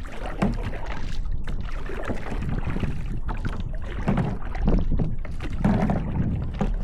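Kayak paddle strokes dipping and splashing in the water, repeating about once a second, over a steady low rumble of wind on the microphone.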